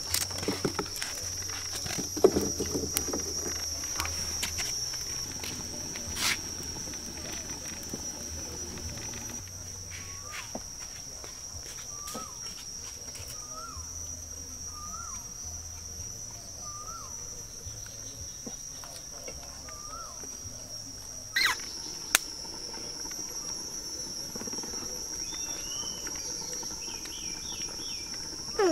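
Insects droning steadily at a high, even pitch. A short rising call repeats about seven times in the middle, and scattered clicks and knocks come in the first few seconds.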